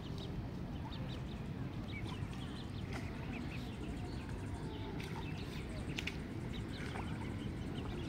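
Mallard ducklings peeping: many short, high, often rising calls, over a steady low background rumble.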